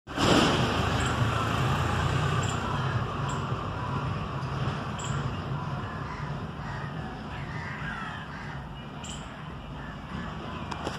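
Crows cawing over a steady background rush, with short calls scattered through.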